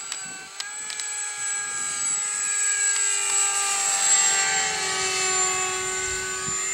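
Twin 50mm electric ducted fans of an R/C Boeing 757 model in flight: a steady high-pitched whine whose pitch shifts only slightly.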